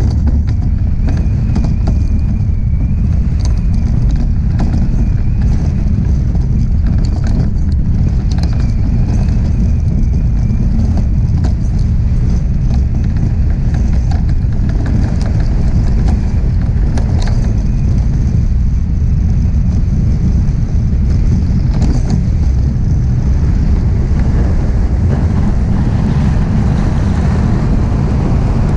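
DN iceboat's steel runners rumbling over lake ice at speed: a loud, steady low roar with scattered clicks and ticks, mixed with wind buffeting the microphone.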